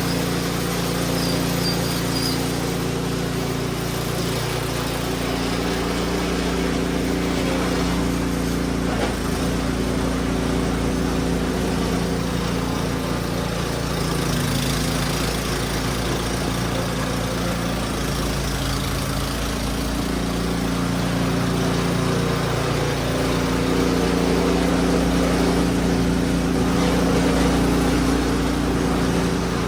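Husqvarna gas snow blower engine running steadily in deep snow, its pitch dipping and recovering every few seconds as it takes on load. It gets a little louder near the end.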